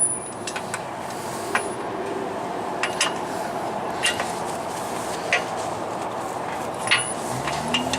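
Sharp metallic clinks from a long-handled wrench and deep socket on a truck's front-axle U-bolt nuts, about one a second and unevenly spaced, over a steady background noise.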